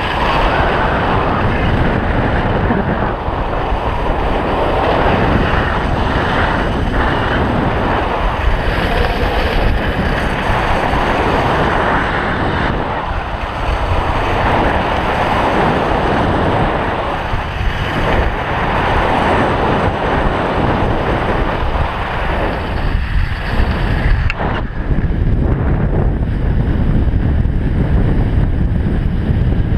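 Wind buffeting an action camera's microphone during a ski run, with the hiss of skis on snow swelling and easing every few seconds through the turns. The higher hiss drops away about three-quarters of the way through.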